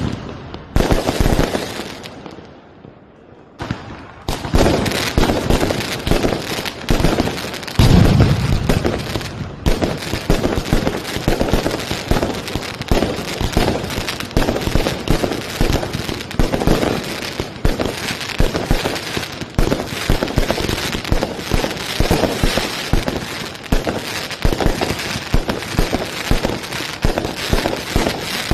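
Fireworks going off in rapid, near-continuous succession: aerial shells bursting with dense crackling and popping. A short lull about two to three seconds in, then the bangs resume, with the loudest boom about eight seconds in.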